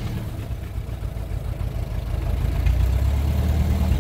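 1926 Ford Model T's four-cylinder flathead engine running as the car drives along, growing louder about two and a half seconds in.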